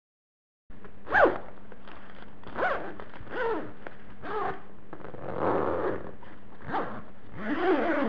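A zipper pulled back and forth in about seven quick strokes, starting about a second in, each a short rasping zip that rises and falls in pitch. The first stroke is the loudest, and one stroke near the middle runs longer.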